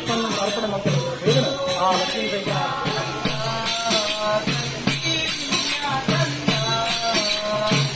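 Background music with a steady beat, jingling percussion and a melody line.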